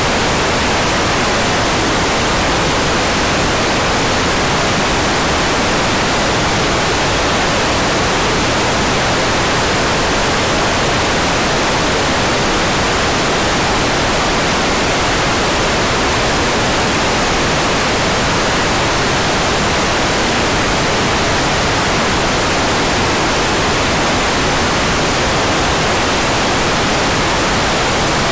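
Hair dryer running steadily on one setting: an even, unchanging rush of blown air.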